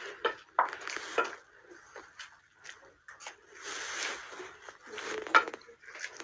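Irregular clatter: scattered sharp clicks and knocks mixed with short bursts of rustling noise, with no speech.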